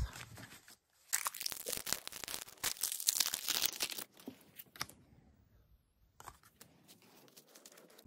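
Foil Pokémon booster pack wrapper being torn open and crinkled: a dense run of crackling for about three seconds, then a few scattered crinkles and faint card handling.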